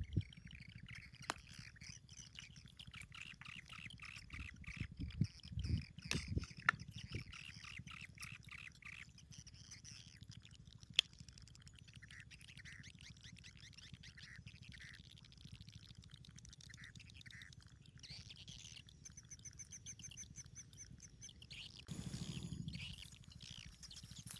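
Birds chirping repeatedly in short calls. A few soft knocks come about five to seven seconds in, and a brief rustle comes near the end.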